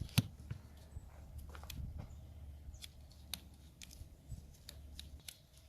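Electrical tape being pulled off the roll and wrapped around two joined wires: scattered sharp clicks and crackles at irregular intervals, over a steady low hum that stops about five seconds in.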